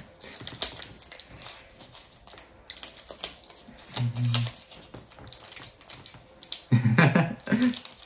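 Foil booster-pack wrapper crinkling and crackling in irregular small clicks as fingers work at its sealed top, a pack that is hard to open. Brief bits of voice come in about halfway and near the end.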